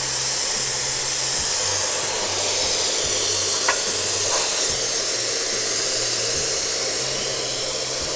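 Steady rushing hiss of blowing air over a low motor hum, with one light knock about three and a half seconds in.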